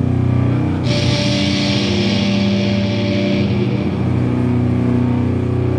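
Live doom metal: heavily distorted guitars and bass hold long, slow chords that shift pitch now and then. A bright hiss joins about a second in and fades after about three seconds.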